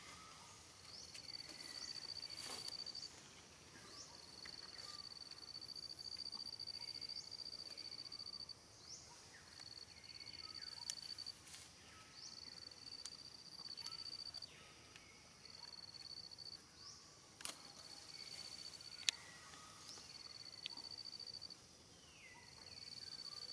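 An insect calling: a steady high-pitched trill in repeated phrases of two to three seconds with short gaps between them. A few sharp clicks stand out above it, the loudest a little before the end.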